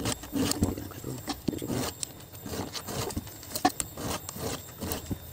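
Round file rasping across the cutter teeth of a chainsaw chain in quick, irregular strokes: the worn chain being hand-sharpened.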